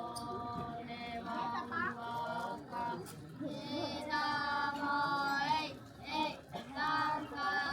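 Voices singing a slow melody in long, drawn-out notes, some sliding in pitch, with short breaks between phrases.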